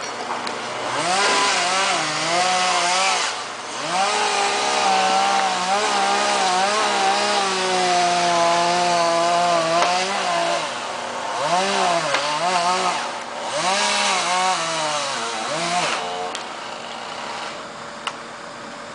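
Two-stroke chainsaw cutting pine, its engine pitch sagging under load in the cut and rising again as it revs, over and over. It drops off near the end.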